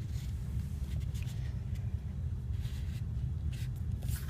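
A sheet of paper being folded in half and creased, heard as a few faint rustles over a steady low background rumble.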